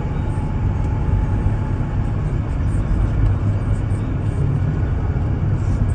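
Small bus running along the road, heard from inside the cabin: a steady low engine and road rumble, with a faint thin whine that fades over the first couple of seconds.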